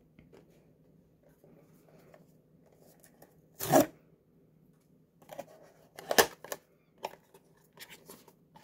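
Small cardboard blind box being handled and opened by hand: a short sharp sound a little under four seconds in, then scattered cardboard clicks and rustles as the flaps are pulled open, the loudest a little after six seconds in.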